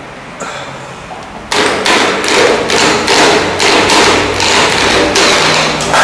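Quick repeated hammer blows, about three or four a second, starting about a second and a half in, from work knocking loose a panel fixed to the wall.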